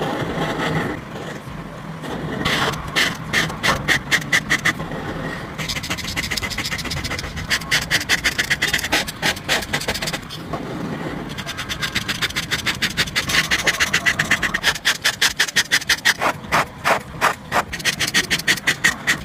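Paint marker tip rubbing over textured paper, coloring in with quick back-and-forth strokes that come in runs of several scratchy strokes a second, with softer steady rubbing between the runs.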